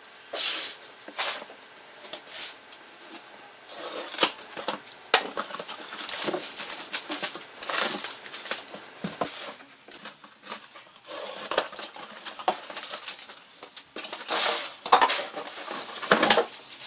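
Cardboard boxes being unpacked by hand: plastic bags rustling and crinkling, with irregular knocks and clatters as packed parts and bags of gravel and filter media are lifted out and set down.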